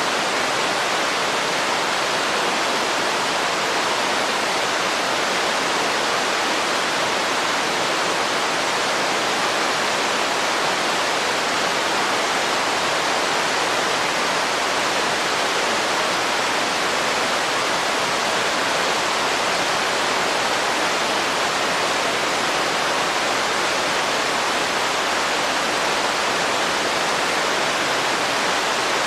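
Running water, a stream or waterfall, rushing in a steady, unbroken hiss with no splashes or changes.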